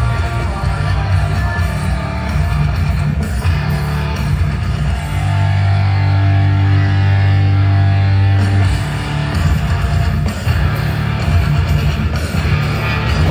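Hard rock music with electric guitar and bass, loud and steady.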